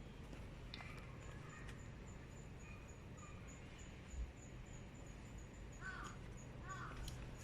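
A bird calling twice near the end, two short calls a second apart, over a faint steady outdoor background.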